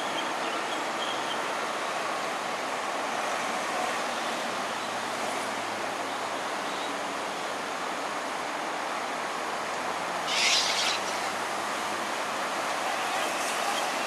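Steady rushing of shallow water flowing over a concrete canal bed, with a brief louder hiss about ten seconds in.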